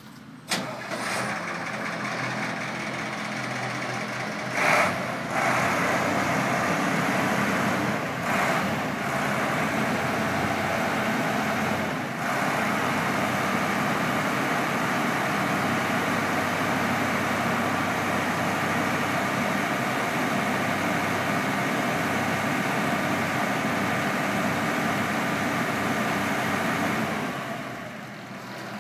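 Ford LN8000 truck engine starting about half a second in, then running steadily at idle, with a few brief louder swells early on and a drop in level near the end.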